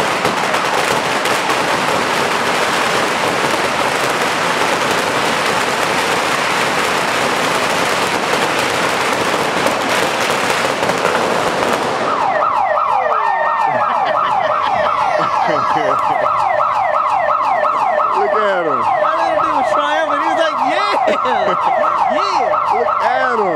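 A long string of firecrackers bursting in a dense, continuous crackle, which stops suddenly about halfway through. An electronic siren then takes over, wailing in fast repeating falling sweeps, about three or four a second.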